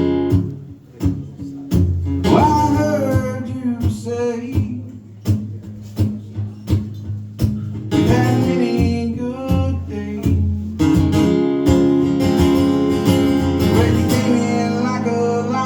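Acoustic guitar strummed and picked in a slow song, with the singer's voice holding long notes at a few points.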